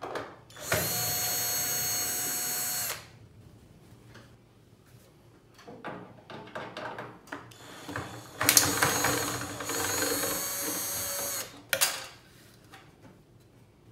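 Cordless drill-driver running in two steady runs, the first about two seconds and the second about three, backing screws out of the oven's sheet-metal casing, then a brief third burst. Small metal clicks and rattles come between the runs.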